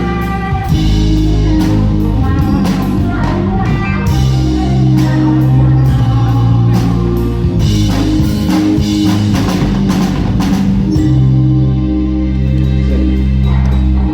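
Rock music: a band playing with guitar, a steady bass line and drum kit, at a steady loud level.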